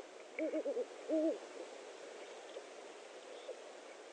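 Great horned owl hooting: four quick, stuttered hoots and then one longer hoot.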